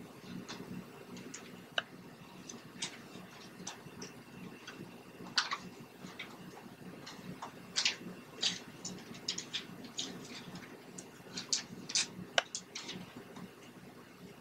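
Thin glossy catalog pages crinkling and rustling as a toddler handles and turns them, in irregular sharp crackles that come thickest about five, eight and twelve seconds in. A steady low hum runs underneath.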